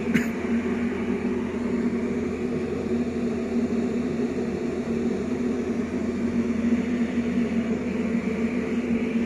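Tuned Yamaha RX King's 135 cc two-stroke single-cylinder engine idling steadily through its under-slung expansion-chamber exhaust, an even hum with rapid pulsing beneath it.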